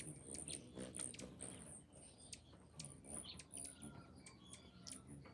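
A crowd of hummingbirds at feeders, giving many quick, very high squeaky chips and chirps, with scattered sharp ticks.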